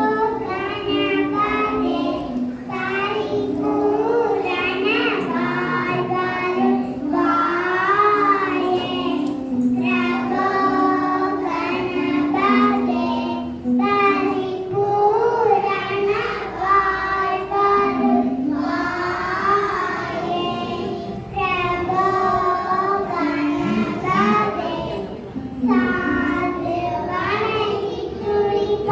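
Young children singing a song to music.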